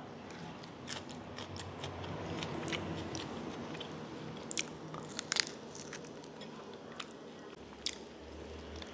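A person chewing and biting boiled chicken and fresh herb leaves close to the microphone, with irregular soft wet clicks and small crunches.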